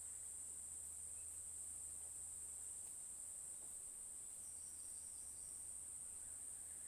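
Insects calling in a steady, unbroken high-pitched drone, faint.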